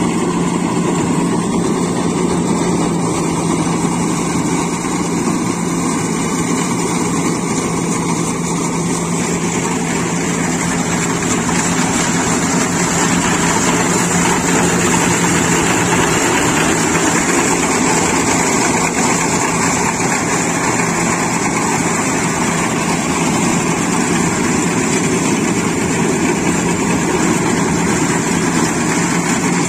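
Iseki combine harvester's diesel engine and harvesting machinery running steadily as it cuts and threshes standing rice: a loud, even drone with a constant low hum.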